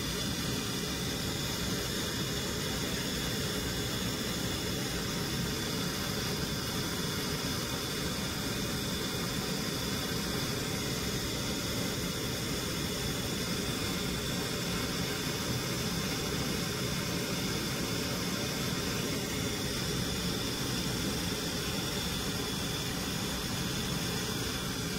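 Handheld gas torch flame hissing steadily while brazing a service-valve stub onto a refrigerator's capillary tube; the hiss cuts off abruptly at the end as the torch is shut off.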